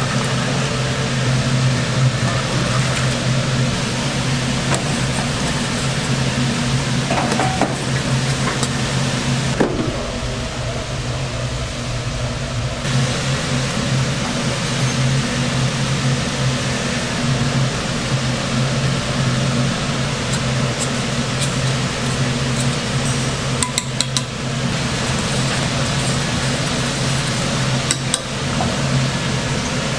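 Restaurant kitchen noise: a steady low machine hum with occasional sharp clinks of dishes and utensils.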